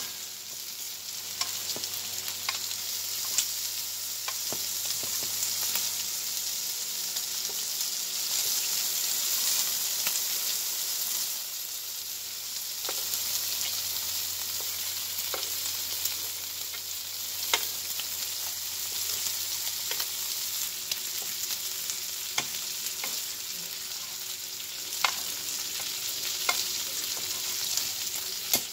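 Bacon strips sizzling steadily in hot fat in a skillet, with scattered sharp clicks and taps of metal tongs against the pan as the strips are turned.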